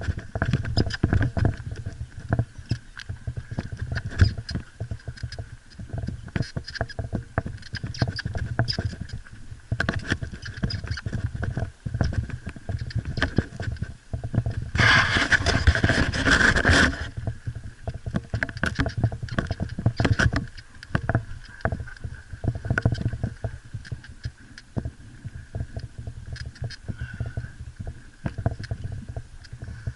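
Mountain bike being ridden over a rough trail, picked up close by an action camera: constant irregular rattling and knocking over a low rumble, with a louder rushing noise for about two seconds midway.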